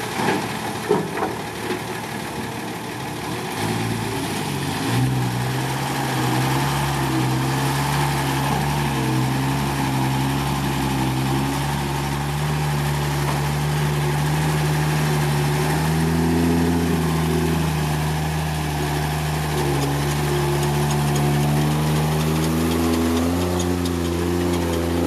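Heavy diesel engine running steadily. It grows louder about four to five seconds in and holds an even note that steps up a little in pitch later on. A few sharp knocks sound in the first two seconds.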